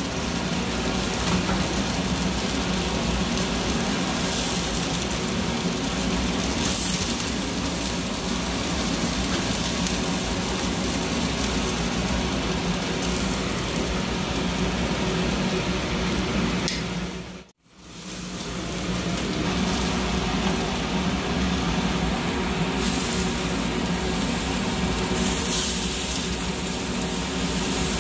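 A kitchen fan runs with a steady whooshing hum. It cuts out briefly about two-thirds of the way through.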